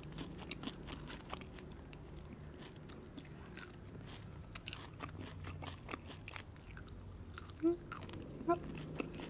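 Close-miked chewing of crispy French fries: many small, soft crunches throughout, with two short, louder mouth sounds near the end.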